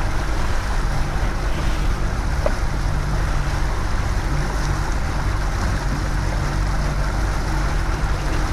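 Yamaha 115 outboard motor running steadily at trolling speed, with wind and water rushing past the moving boat.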